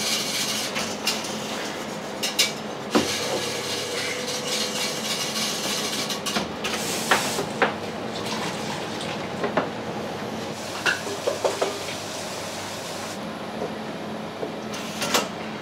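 Metal baking trays and kitchen utensils clinking and knocking now and then over a steady kitchen hiss, as baking trays are loaded into an oven.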